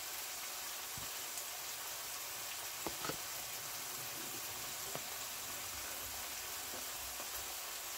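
Faint steady hiss with a few soft clicks and taps, about one, three and five seconds in, as a metal fork scoops food from a paper plate.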